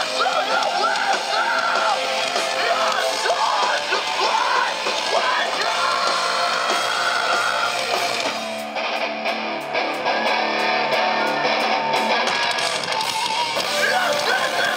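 Live metalcore band playing loud distorted guitars, bass and drums with vocals. From about nine seconds in the music thins out for several seconds, then the full sound returns near the end.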